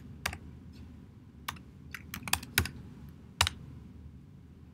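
Typing on a computer keyboard, entering a web address into a browser: about seven separate keystrokes at uneven spacing, most of them bunched in the middle.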